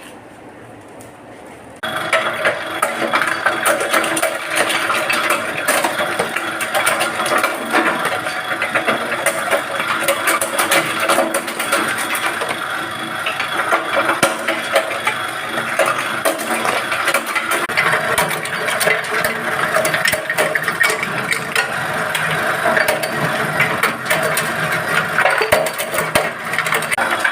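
Kluwek shell-peeling machine starting up about two seconds in and running with a dense, steady clatter of clicks and rattles as the hard kluwek shells are cracked.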